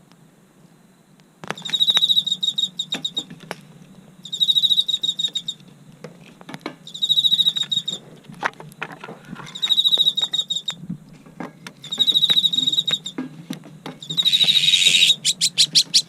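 An insect trilling high and fast in repeated bursts of about a second, roughly every two and a half seconds, over the crackle and pops of a wood fire in a fire pit.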